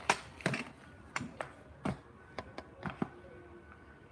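Handling noise as something is set up: an irregular run of sharp taps and knocks, about ten in three seconds.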